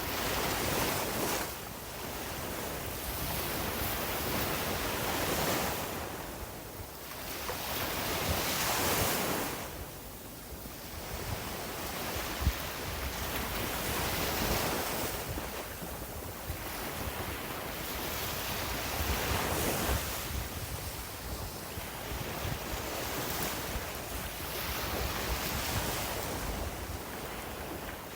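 Sea waves breaking and washing up the beach, the surf swelling and falling every few seconds, with a low rumble of wind on the microphone.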